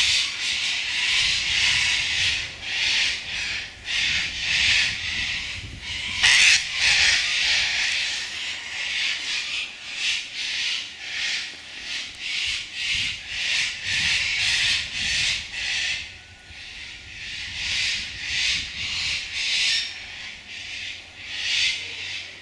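Sulphur-crested cockatoos giving harsh, rasping screeches in quick succession, a few each second, easing off for a moment about two-thirds through before starting again.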